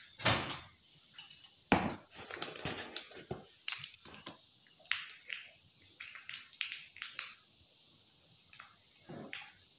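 Handling noise of objects on a tabletop: two loud knocks in the first two seconds, then scattered lighter clicks and rustles.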